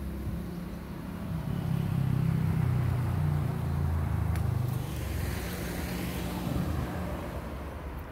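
A motor vehicle passing by, its low engine rumble swelling over the first couple of seconds and fading toward the end.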